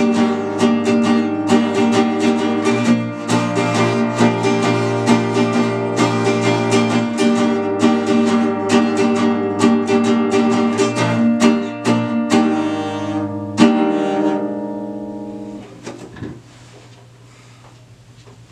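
Acoustic guitar played with quick picked notes over ringing lower strings, closing with a final chord about 13 to 14 seconds in that rings out and fades away. After it, only faint room noise and a few small knocks.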